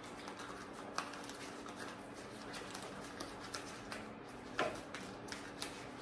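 Scattered light clicks and taps of hands handling bicycle cable housing and small parts during internal cable routing, with a sharper click about a second in and a louder knock about four and a half seconds in, over a faint steady hum.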